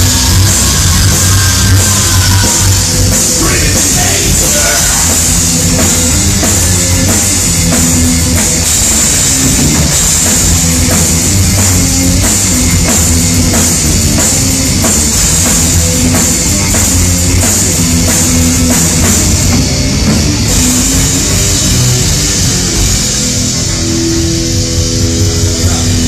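Heavy metal band playing live: distorted guitars and bass over a drum kit keeping a steady, driving beat. Near the end the drumming drops away and a few held notes ring on.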